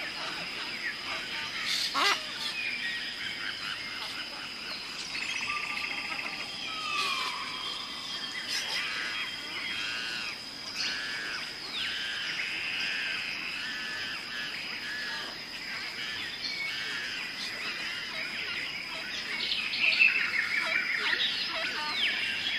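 Several birds chattering and chirping together, with runs of rapid repeated notes, over a steady high-pitched whine.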